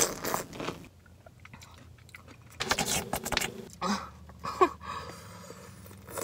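Biting into and chewing a whole Van Holten's hot pickle, close up: wet, crunchy bites, with the loudest crunching burst about two and a half to three and a half seconds in.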